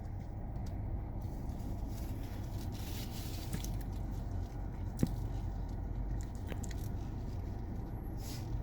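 Steady low rumble of a car heard from inside its cabin, with one sharp click about five seconds in.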